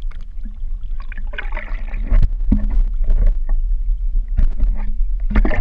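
Water sloshing and splashing against a waterproof action-camera housing held at the waterline as it dips in and out of the water, over a steady low rumble of water moving against the case.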